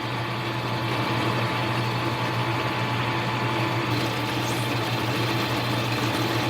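Small metal lathe running steadily with its motor hum and whine while a cutoff tool parts off a small workpiece; a brighter hiss joins the hum about four seconds in.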